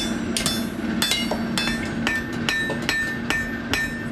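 Blacksmith's hammer striking a steel drift through a hole in hot steel on an anvil, steady blows about two to three a second, each one ringing. A steady low hum runs underneath.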